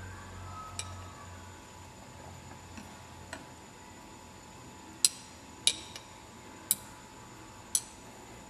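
Glass thermometer stirring the water bath and ticking against the glassware: a few faint clicks, then four sharp glassy clicks about a second apart in the second half.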